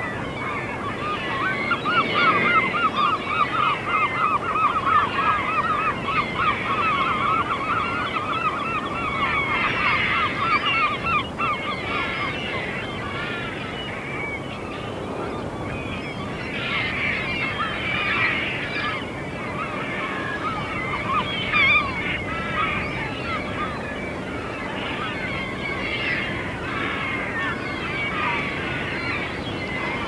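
A large flock of gulls calling over one another, many overlapping squabbling cries, in a feeding frenzy over a bait ball at sea. In the first dozen seconds one bird gives a fast run of rapidly repeated calls.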